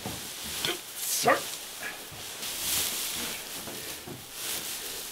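Dry hay rustling and crackling as it is gathered and bundled by hand with rope, with a short rising squeal about a second in.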